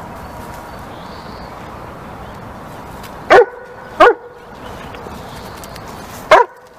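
A dog barking three times: two short barks under a second apart a little past the middle, then a single bark near the end, over a steady background hiss.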